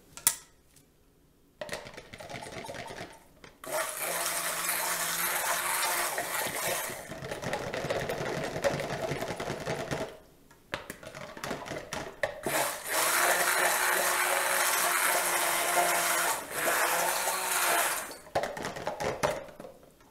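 Electric immersion stick blender running in a small portion of cold-process soap batter, a steady motor hum under a dense whirring noise, in long runs with a short pause about halfway and a few short pulses near the end. A sharp knock comes just before it starts.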